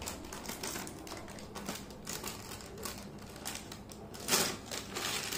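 Scissors snipping through a plastic snack packet in a run of quick, crisp cuts, with a louder rustle of the packet about four seconds in.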